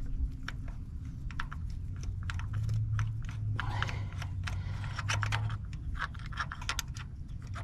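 Irregular light metallic clicks and scrapes of hand tools, a ratchet and socket, working on the bolts of an engine's oil filter housing. A steady low hum runs underneath for a few seconds in the middle.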